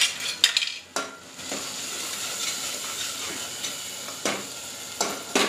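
Masala of tomatoes, spices and ginger-garlic paste sizzling in oil in a pressure cooker while it is fried and stirred, with a metal spoon knocking and scraping against the pot: several sharp knocks in the first second and a few more near the end.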